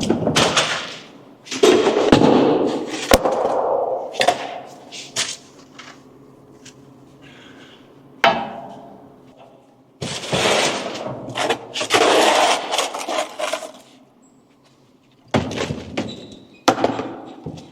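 Irregular bangs, clatters and scraping noises from work in progress, with sharp knocks about two, three and eight seconds in and longer scraping bursts near the middle and near the end.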